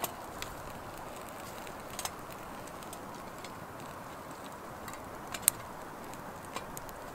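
Twig fire crackling in a small titanium wood stove: scattered sharp pops and snaps over a steady hiss, the loudest pop about five and a half seconds in.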